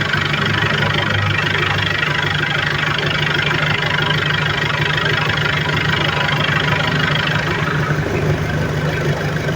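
Mitsubishi L300 pickup's diesel engine idling steadily through an aftermarket Serigala racing exhaust.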